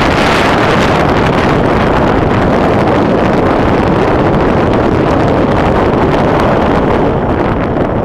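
Loud, steady wind rushing over the camera microphone at downhill mountain-bike speed, with the tyres rolling on a gravel road and frequent small knocks from bumps.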